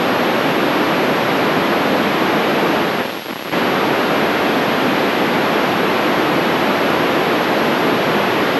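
FM radio static: a steady, loud hiss from a handheld transceiver's speaker with the squelch open, while it listens on the ISS downlink and copies no station. About three seconds in, the hiss drops out for half a second, as a brief signal quiets it.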